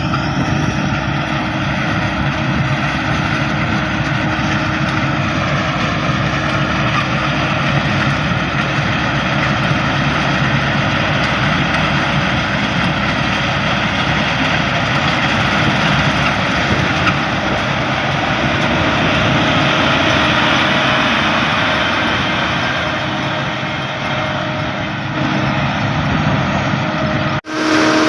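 Laverda combine harvester running steadily under load while harvesting rice: engine and threshing machinery, with a brief dropout near the end.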